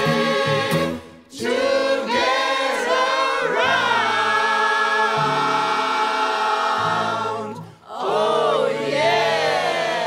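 A choir of older voices singing with instrumental backing, broken by two short pauses and ending on a long swooping, held 'oh yeah'.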